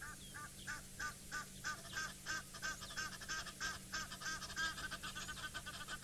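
Egyptian goose honking in a rapid, even run of harsh calls, about three a second.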